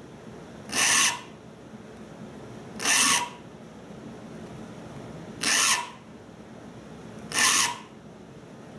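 A saw file pushed across the teeth of a Spear and Jackson dovetail saw held in a saw vise: four separate rasping strokes, about two seconds apart. It is sharpening the teeth, with the file held flat across the top and square to the plate.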